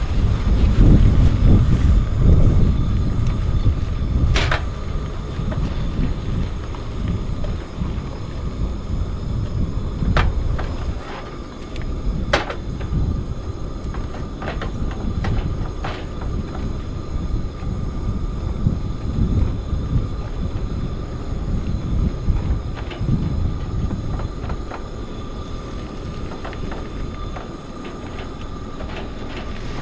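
Wind buffeting the microphone in a low, uneven rumble, strongest in the first few seconds, with a faint steady tone and a few sharp clicks from cooking utensils.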